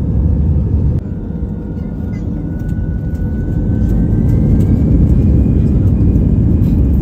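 Cabin noise of an Airbus A320 in flight: a steady low roar of the jet engines and rushing air. A faint whine rises slowly in pitch from about a second in, while the roar grows a little louder.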